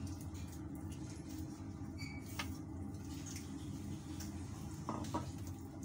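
Quiet kitchen room tone: a steady low hum, with a few light clicks and taps of utensils about two seconds in and again near the end.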